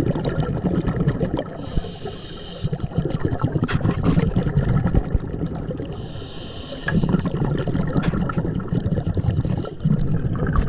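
A diver's breathing heard underwater: a short hiss of a breath drawn in about 2 s in and again about 6 s in, with the bubbling of each breath out in between.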